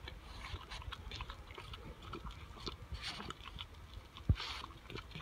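French bulldog gnawing kernels off a hand-held corn cob: irregular crunching and chewing, with one sharp knock about four seconds in.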